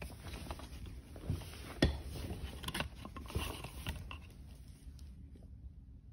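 Fingers handling a small plastic lithium-ion polymer battery pack, making soft rustling and rubbing with a few light clicks and taps. The sharpest click comes about two seconds in.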